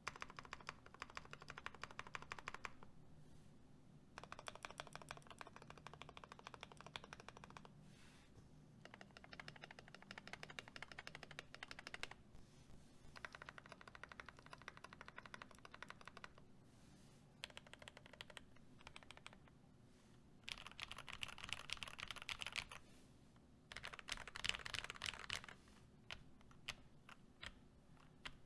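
Typing on a KBD67 mechanical keyboard with lubed Gateron Milky Yellow linear switches in a brass plate and aluminium case, with PBT keycaps. Fast runs of keystrokes come in bursts of a few seconds with short pauses between, the loudest runs about two-thirds of the way through, ending in a few single key presses.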